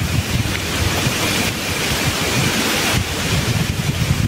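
Wind rushing through rainforest canopy, a steady hiss of rustling leaves, with wind buffeting the microphone as a fluttering low rumble.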